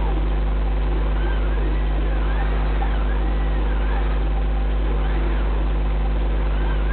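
Homemade CNC machine's stepper motors driving the axes, their tone gliding up and back down with each move, about once a second, over a steady low hum.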